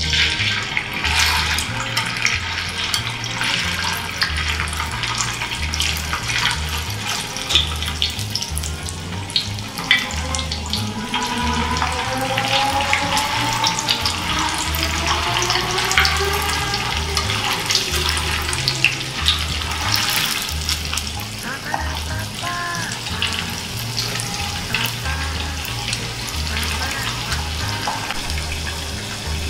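Chicken pieces deep-frying in hot oil in a small pan, a loud sizzle full of fine crackles and pops that starts up sharply as the chicken goes in. A low repeating beat of background music runs underneath.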